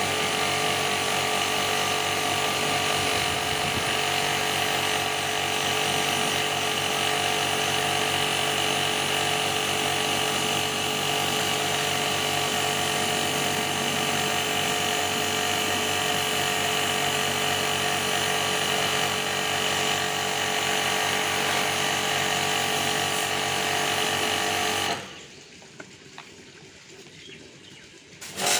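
Small electric motor running steadily with a constant whine, cutting out about 25 seconds in and starting again just before the end.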